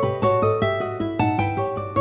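Background music: a quick melody of plucked notes, several a second, each starting sharply and fading, over a steady low note.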